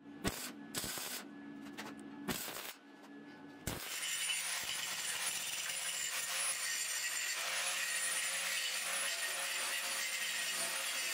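A few scattered knocks and clicks, then about four seconds in a handheld electric grinder starts running steadily with a thin high whine, working over the sheet-steel body of a welded sauna stove.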